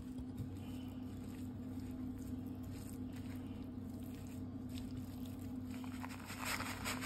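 A silicone spatula stirring and squishing a moist rice-and-sausage mixture in a bowl, over a steady low hum. Near the end the scraping and rustling get louder as more rice is tipped in.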